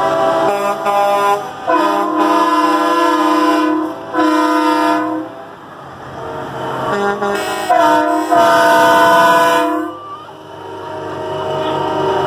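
Semi truck air horns blown in a series of long blasts, several notes sounding together as a chord, as the trucks pass close by. The horns stop about ten seconds in, leaving the rising sound of truck engines.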